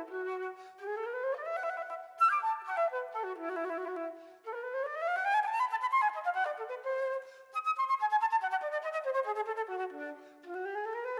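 Background music led by a flute-like wind instrument playing quick runs of notes that rise and fall, with light percussive clicks.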